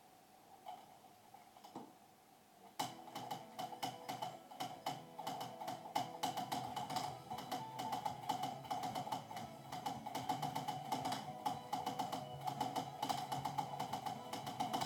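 Typing on a Genius mechanical keyboard with black switches: rapid, irregular keystroke clicks that start about three seconds in and keep going.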